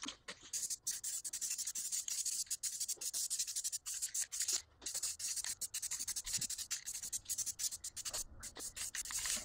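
Rapid, irregular scratchy rubbing, with short pauses about halfway through and near the end.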